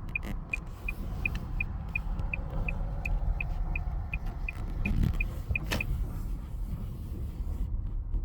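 Car turn-signal indicator ticking evenly about three times a second over the steady low rumble of the car's engine and tyres on the road. The ticking ends with a sharp click about six seconds in.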